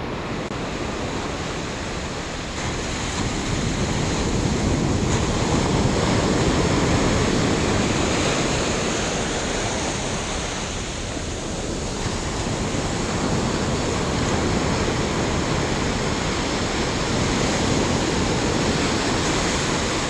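Surf washing up a sandy beach: a steady rush of breaking waves that slowly swells and eases over several seconds.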